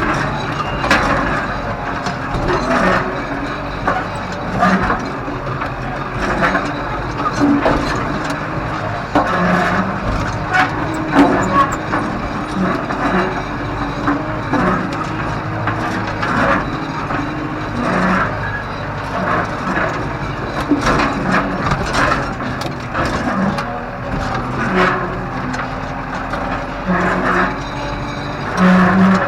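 Tractor running steadily while towing a land roller across ploughed ground, with frequent irregular knocks and rattles throughout.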